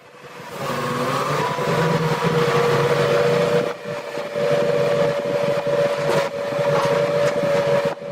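Sennebogen 870 log-handling material handler running under load: a steady engine drone with a high, steady whine over it. The sound dips briefly about four seconds in and again near the end.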